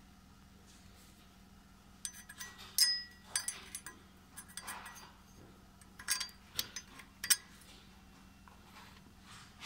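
Light metallic clinks and taps, some with a brief ring, as a steel bolt is handled and fitted into a hole of the camshaft sprocket. They start about two seconds in and come irregularly.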